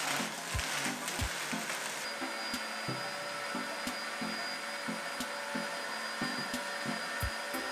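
An old, heavily used JTC OmniBlend V countertop blender running at high speed, blending almonds with water into almond milk. Its motor noise settles into a steady whine about two seconds in.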